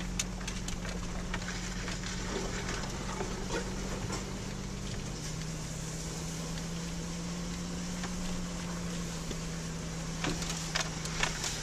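Infiniti FX35's V6 engine running with a steady low hum, heard inside the cabin, its pitch dropping slightly about five seconds in. Scattered knocks and clicks, most of them near the end, as the SUV bumps along a rough dirt track.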